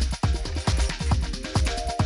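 Background music with a steady beat, a little over two beats a second.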